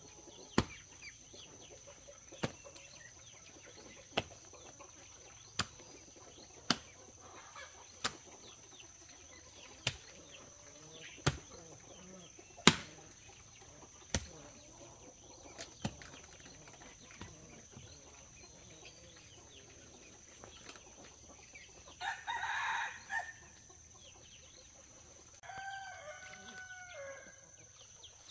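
Chickens: a rooster crows near the end, with clucking. Under them runs a series of sharp knocks, about one every second and a half, and a steady high-pitched tone.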